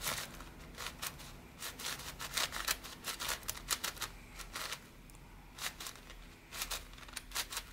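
Yuxin Little Magic 7x7 M magnetic speedcube being turned by hand, its plastic layers clicking into place in quick irregular runs with a short lull before the end. The cube is new and tightly tensioned straight out of the box.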